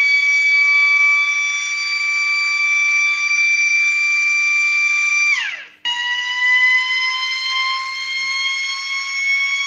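A 12 V electric motor siren wails at a steady high pitch. A little over five seconds in, its pitch falls steeply as it cuts out, then it starts again almost at once and slowly climbs back to full pitch.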